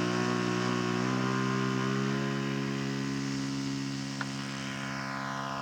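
Engine of a radio-controlled scale model Sopwith 1½ Strutter running steadily on a test flight, a low even drone with slight pitch changes, slowly getting quieter toward the end.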